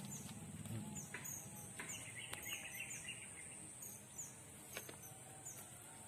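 Outdoor ambience: short falling bird chirps repeating about twice a second over a steady high-pitched buzz, with a few faint clicks.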